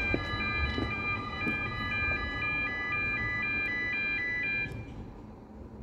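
Level crossing warning alarm sounding a two-tone warble, switching between two pitches about twice a second. It cuts off about five seconds in. The alarm is labelled faulty.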